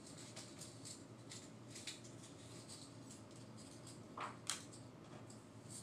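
Small jewelry packaging being handled and opened by hand: faint rustles and light clicks, with two sharper crinkles about four seconds in.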